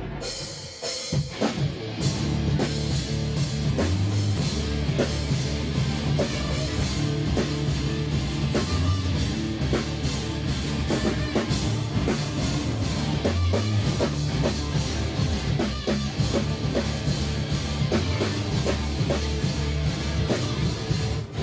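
Live rock band playing an instrumental passage: drum kit keeping a steady driving beat under bass and electric guitar. The band comes in at full level about two seconds in, after a brief dip.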